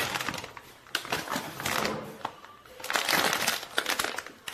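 A clear plastic bag holding screws and small fittings crinkling and rustling as it is picked up and handled, in three bouts with short pauses between.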